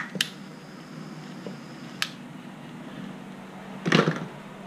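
Two sharp single clicks about two seconds apart, then a short clatter of small tools and parts being moved about on a wooden workbench about four seconds in. A low steady hum runs underneath.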